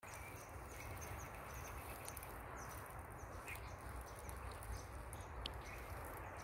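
Scrubland ambience: short, high-pitched chirps from wildlife repeat about twice a second over a steady hiss, with a low rumble underneath.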